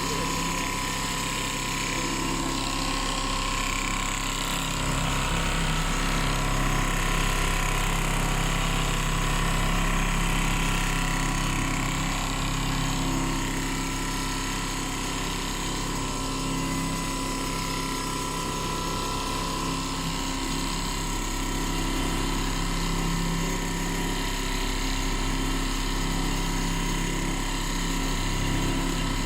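Large computer-controlled quilting machine running, stitching at a steady pace, with a constant level and several unchanging tones from its motors.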